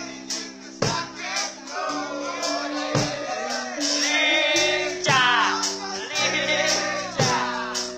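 Live reggae band playing: a singer over electric guitars, bass and drums, with regular drum hits and steady held notes underneath.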